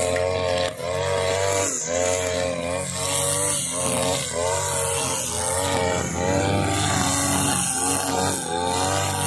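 Husqvarna 542RBS backpack brush cutter's two-stroke engine running at high speed while its nylon trimmer line cuts grass, its pitch dipping and recovering about once a second as the line bites with each swing.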